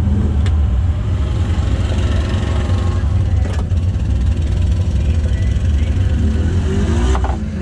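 Steady low rumble of engines idling at the start line. Near the end an ATV engine revs up as it sets off into the mud pit.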